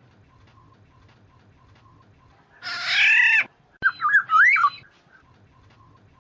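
Black-naped oriole (kepudang) calling: one harsh, nasal call of about a second that falls in pitch at its end, then a short phrase of whistled notes that slide up and down.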